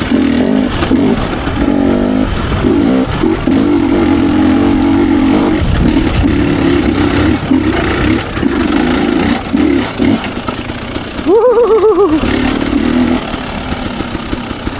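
Dirt bike engine running under load on a trail, its pitch rising and falling with the throttle. About eleven seconds in there is a quick rev that climbs and drops, the loudest moment.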